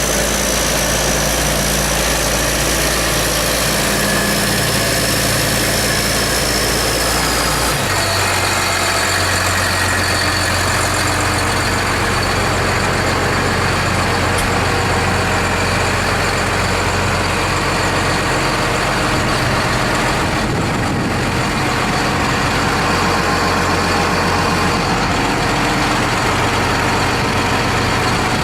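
New Holland T8030 tractor's six-cylinder turbodiesel running steadily with a high whine, its engine note shifting about eight seconds in.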